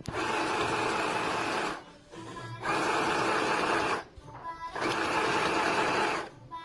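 Mini electric sewing machine stitching in three short runs, each starting and stopping abruptly, with faint background music between the runs.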